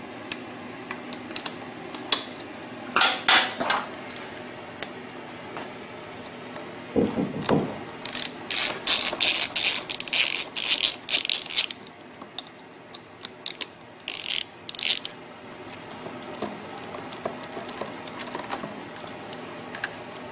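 Hand tool turning the valve cover screws into a small 79.7 cc generator engine: short runs of rapid metallic clicking, densest in the middle, with scattered single clicks and one low knock.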